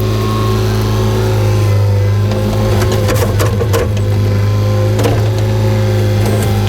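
Hyundai excavator's diesel engine running steadily, with a cluster of knocks and scrapes about three seconds in and another knock about five seconds in.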